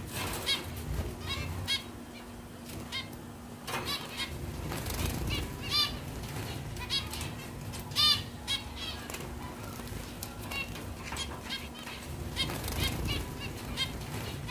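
A flock of caged zebra finches calling: many short, nasal beeping calls, overlapping and repeating, with wings fluttering. One call about eight seconds in is the loudest.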